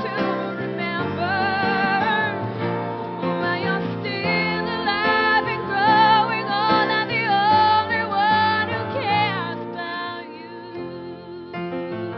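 Background song: a woman singing with vibrato over sustained instrumental accompaniment.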